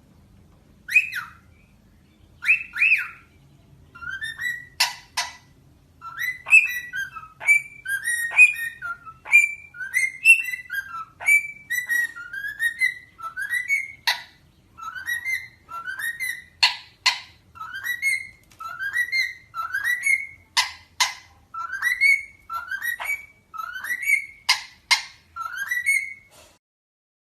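A parrot whistling a short rising note over and over, about twice a second, with sharp clicks mixed in among the calls. The calls come sparsely at first and stop shortly before the end.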